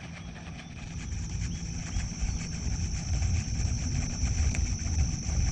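Crickets chirping in a steady high drone over a low rumbling noise that grows louder toward the end.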